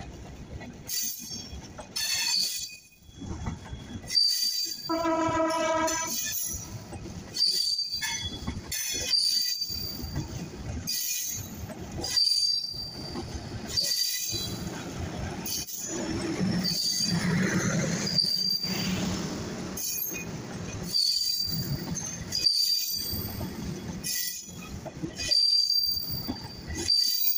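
Passenger coaches of the Bangladesh Railway Sundarban Express rolling past, their wheels knocking over rail joints about once a second with brief high-pitched wheel squeals in between. A horn sounds once, briefly, about five seconds in.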